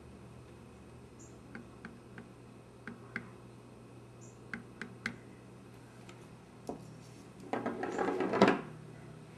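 Scattered small clicks and taps, then a louder rattling burst about a second long near the end, over a steady low hum.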